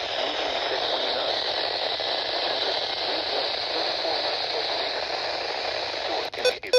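Weather-radio receiver hissing with steady static while the broadcast signal drops out, with a few sharp clicks near the end as the signal comes back.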